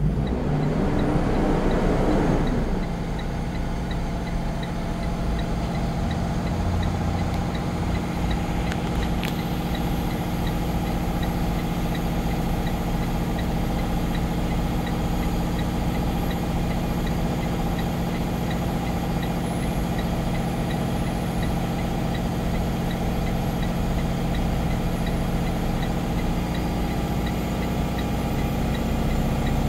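Bus diesel engine running parked during a stationary exhaust-filter regeneration. In the first three seconds it revs up to a raised idle of about 1,700 rpm, then holds steady. A hazard-light flasher ticks evenly over it.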